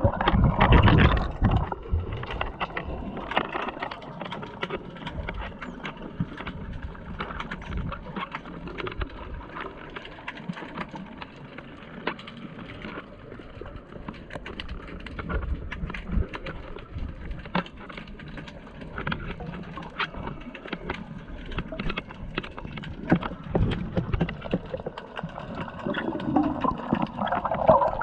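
Muffled underwater sound: water moving and gurgling, with many sharp clicks and crackles throughout. There are louder rushing swashes in the first couple of seconds and again near the end, as the swimmer comes up to the surface.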